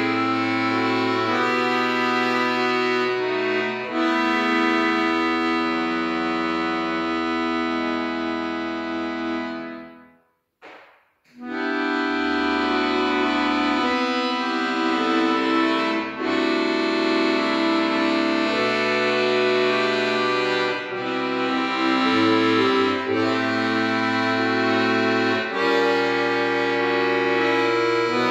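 Piano accordion played solo: sustained chords over held bass notes. About ten seconds in the sound dies away to a second's silence, then the playing resumes.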